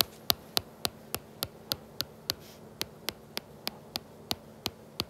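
Stylus tip tapping on a tablet's glass screen in a quick, even series of sharp clicks, about three to four a second, as a check mark is struck through each number in a list.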